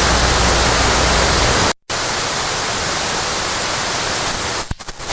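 Loud static hiss from a set tuned between channels with no clear signal. It cuts out for an instant about two seconds in and comes back a little thinner in the bass. A few short clicks of switching follow near the end.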